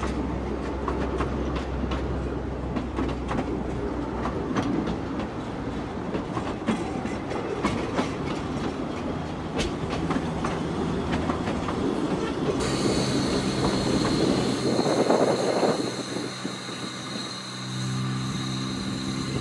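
Narrow-gauge passenger coaches rolling past close by, with a rumble and wheels clicking over rail joints. About two-thirds in the sound changes abruptly to a Beyer-Garratt steam locomotive with a steady hiss, a louder rush of sound around the middle of that stretch and a low hum near the end.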